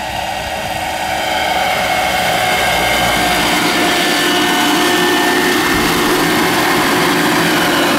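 Large electric RC scale helicopter with a four-blade main rotor, driven by an Align 850MX brushless motor, running with its rotors turning. A high, steady whine from the motor and gear train sits over the rotor noise, getting louder over the first couple of seconds and then holding steady.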